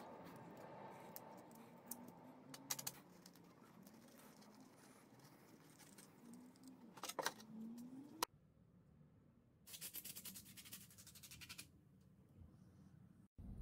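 Faint metal clicks and scrapes as a used car oil filter is pried apart with pliers and its steel base plate is handled and wiped with a rag. After a sudden cut about eight seconds in, a hiss of about two seconds from an aerosol can spraying.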